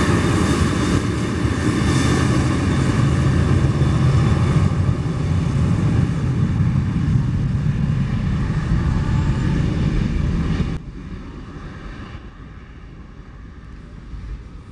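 Boeing 737 jet engines running at high thrust as the airliner begins its takeoff roll: a loud, steady jet roar with whining tones. About ten seconds in, the sound cuts abruptly to a much quieter, distant jet rumble.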